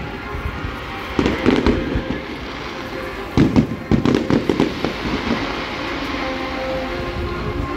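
Aerial fireworks going off in quick volleys of bangs and crackles, one cluster about a second in and a longer run from about three and a half seconds in.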